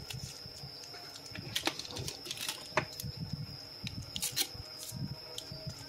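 Scattered light clicks and low rustling from eyeglass frames being handled, over a faint steady high-pitched whine.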